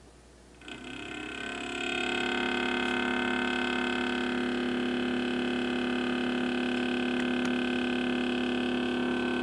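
Kenmore Elite French door refrigerator making a loud, steady humming drone with several held pitches, which starts about a second in and builds over the next second before holding level. It is the abnormal running noise of the 18-month-old fridge, loud enough that the owner says it would keep them from sleeping.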